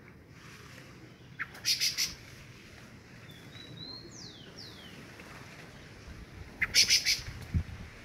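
Rufous-bellied thrushes calling in two quick bursts of sharp clicking notes, about a second and a half in and again near seven seconds, with faint thin whistles sliding in pitch between them. These are the parents' alarm calls at someone close to their nest.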